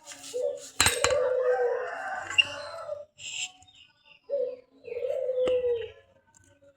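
A rooster crowing twice, each crow a long drawn-out call; the second begins with a short note. Two sharp clicks come in during the crows.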